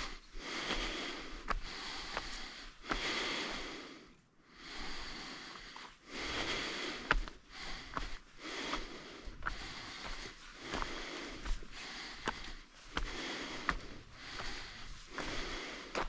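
A hiker breathing hard in regular noisy breaths, about one a second, with footsteps clicking and scuffing on a rocky trail.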